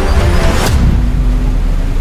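Background music with a heavy deep bass and sustained notes, and one sharp percussive hit under a second in.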